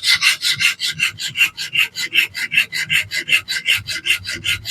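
Coarse diamond sharpening plate on a fixed-angle sharpener rasping back and forth across a DC53 steel knife edge in quick, even strokes, about six a second, reprofiling the bevel.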